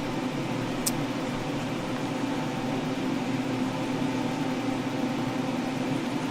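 Steady mechanical hum and hiss of a running machine, with a few held low tones and a brief high click about a second in.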